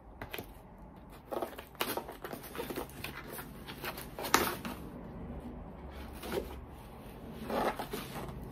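Small scissors cutting and scraping at the tape of a cardboard box, with cardboard rustling and tearing in short, irregular rasps and clicks; one sharper click about halfway through.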